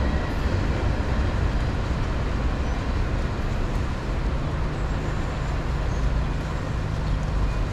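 Steady road traffic noise from cars queued at a railroad grade crossing beginning to move off as the gates lift, with a low rumble throughout.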